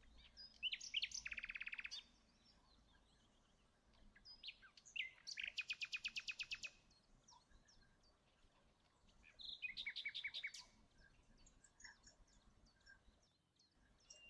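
A songbird singing in three short bursts of quick, trilled chirps, a few seconds apart.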